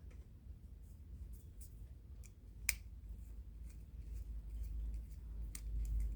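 Scattered small metallic clicks and ticks of a Torx driver and screws being worked out of a Civivi Elementum folding knife, with one sharper click about two and a half seconds in, over a low handling rumble.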